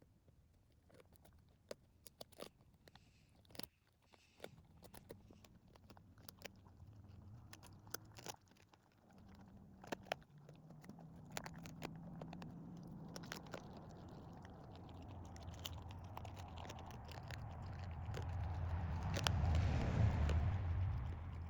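A dog crunching and chewing a roasted chicken trachea: a long string of sharp, irregular crunches. A low rumble builds up through the second half and is loudest near the end.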